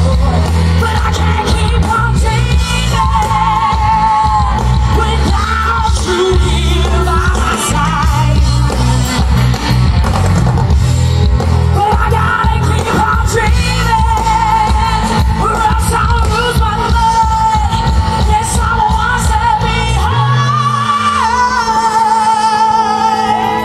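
Live rock band playing loud, with a female lead vocalist singing held, wavering notes over electric guitar, bass and drums. About 20 seconds in the bass and drums drop out, leaving sustained notes.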